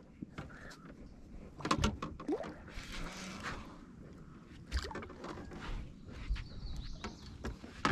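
Irregular knocks, clicks and rattles of fishing rods and a landing net being handled in a boat while a hooked fish is fought to the side.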